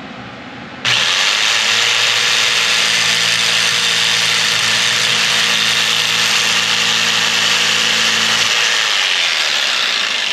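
Corded jigsaw with a metal-cutting blade sawing through an aluminium strap held in a vise. It starts suddenly about a second in and runs loud and steady; the motor hum drops out near the end.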